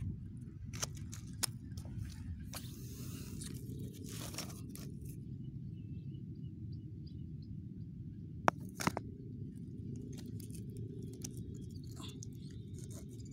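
Crunching, scraping and clacking of coral rubble and beach stones as they are walked over and handled, with scattered sharp stone-on-stone clicks, the sharpest about eight and a half seconds in, over a steady low rumble.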